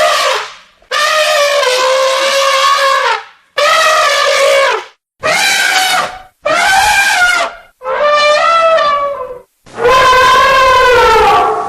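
Elephant trumpeting: a run of about six loud, brassy calls, each one to two and a half seconds long, with short pauses between them; the last call is the longest.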